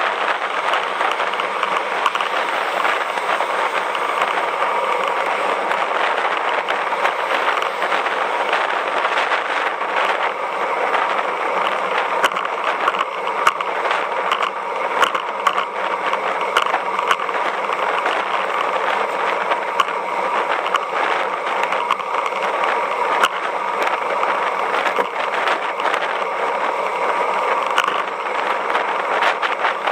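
Road bicycle riding on asphalt, heard up close: a steady rush of tyre and wind noise, with frequent small clicks and rattles.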